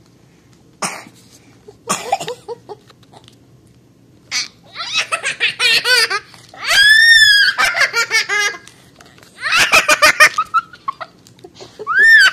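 A young girl laughing hard right at the microphone. Her laughter comes in runs of quick, rhythmic bursts starting about four seconds in, with a long, high squeal about seven seconds in and another near the end.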